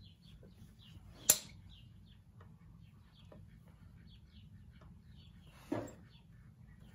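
Birds chirping faintly in the background, with a single sharp click about a second in and a duller knock near the end.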